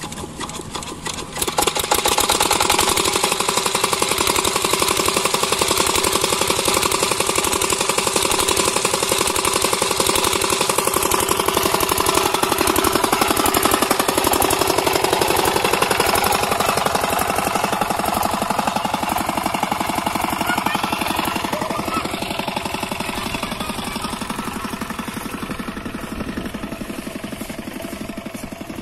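8 hp single-cylinder water-cooled diesel engine driving an irrigation water pump: after a few slow knocks it fires up about a second and a half in and runs steadily with a fast, even knock. It grows gradually fainter near the end.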